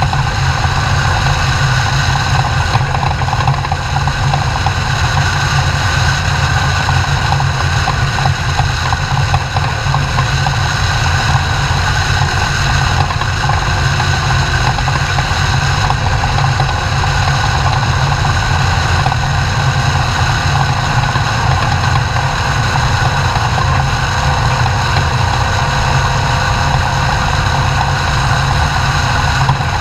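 Off-road race truck's engine running steadily and loudly, an unbroken engine sound that holds the same level throughout.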